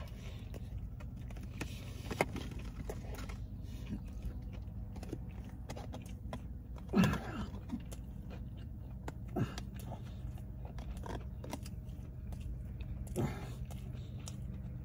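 A person chewing a mouthful of fried chicken sandwich, with faint mouth and handling clicks. Three short hummed voice sounds come about seven, nine and thirteen seconds in, over a steady low hum in the car cabin.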